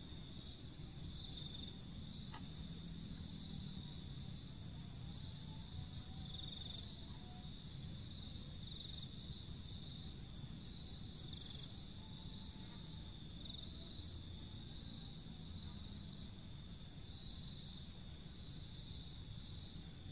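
Insects trilling steadily at a high pitch, with a low background rumble.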